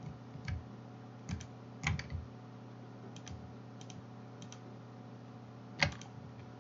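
Scattered clicks of a computer mouse and keyboard as items are picked in a file list, about eight in all with the loudest near the end, over a steady low hum.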